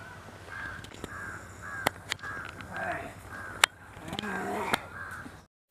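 Crows cawing, a steady run of short harsh calls about two a second, with a few sharp clicks among them; the sound cuts off suddenly near the end.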